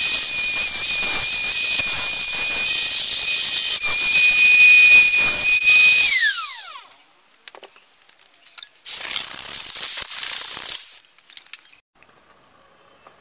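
Compact trim router with a 12 mm bit and edge guide running at full speed with a high, steady whine as it cuts a shallow recess into the particleboard edge of a melamine shelf. About six seconds in it is switched off and the whine falls away as the motor spins down. A shorter burst of hissing noise follows about nine seconds in.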